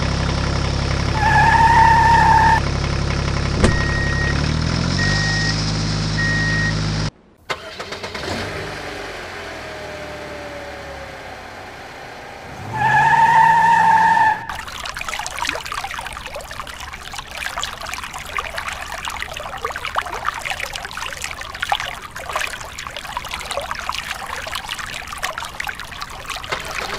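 Vehicle engine sound effect running steadily, with a horn honk about a second in and a few short beeps, then winding down. After a cut the engine revs up with another honk, and from about halfway on water from a hose sprays and spatters onto a plastic toy truck.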